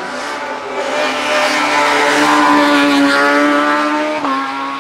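Hillclimb racing car's engine at high revs, growing louder to a peak about two and a half seconds in as it passes. The pitch climbs slowly, then drops sharply about four seconds in at an upshift.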